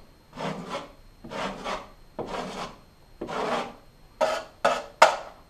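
Metal drywall knife scraping across freshly sprayed wall texture in repeated strokes to knock it down, about one stroke a second, the last three shorter and sharper.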